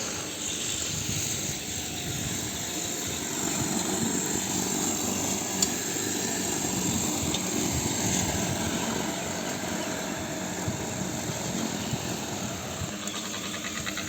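Lawn mower engine running steadily, with one sharp click about five and a half seconds in.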